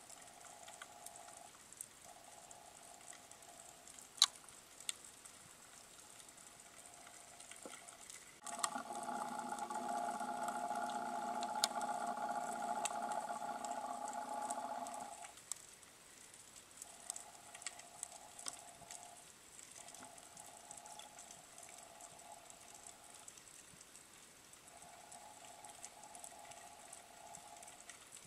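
Underwater ambience picked up by a diving camera: a continuous faint crackle of fine ticks, with one sharp click about four seconds in. From about a third of the way through until about halfway, a louder steady hum with several pitches comes in, then cuts off; a fainter single-pitched hum comes and goes in the gaps.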